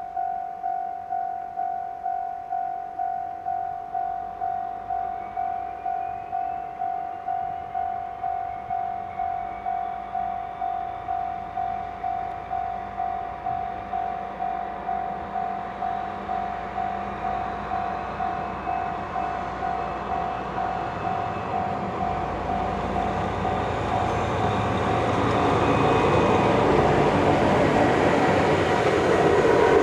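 Level-crossing warning bell ringing in even pulses, about two a second, as a train approaches. The train's rumble grows from about twenty seconds in and is loud as it passes near the end, drowning out the bell.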